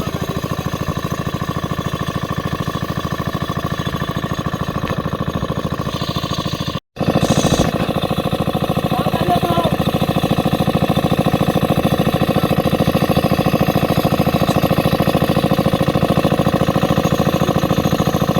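Small engine running steadily at an even speed. The sound cuts out for an instant about seven seconds in and comes back louder.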